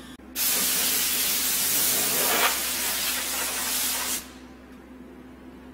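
Compressed-air blow gun blowing sawdust off a CNC router's bed: one steady, loud hiss lasting about four seconds, then cutting off sharply. A faint low hum runs underneath.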